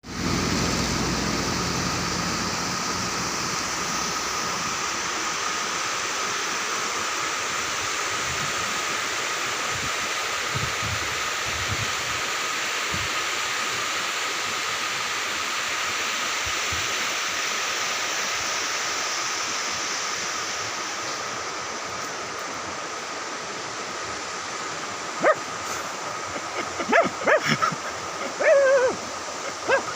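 A steady rushing background with a constant high-pitched hum, then, from near the end, a string of short, sharp, dog-like yelping animal calls, some gliding in pitch.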